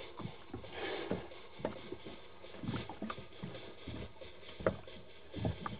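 Small fishing boat's hull rocking on the water: irregular soft knocks and thumps over a faint hiss.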